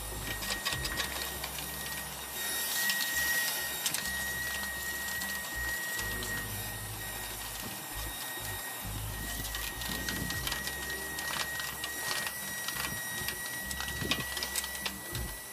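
Vacuum cleaner running with a steady high whine as its crevice nozzle sucks grease and debris from the bottom of a propane grill, with scattered clicks as bits are pulled into the nozzle.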